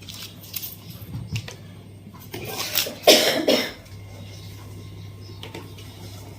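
A person makes a short breathy, cough-like vocal sound lasting about a second, peaking about three seconds in, over a steady low hum.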